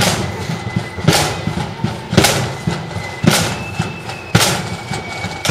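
Marching band's drums beating time: a heavy bass-drum-and-cymbal strike about once a second, with side drums rattling between the strikes.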